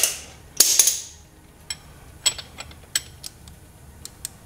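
Metal hand tools clinking on the rocker-arm adjuster screw and locknut of a VW Pumpe-Düse diesel injector as a ratchet and spanner work it. Sharp metallic clinks and a short rattle come in the first second, then scattered light ticks.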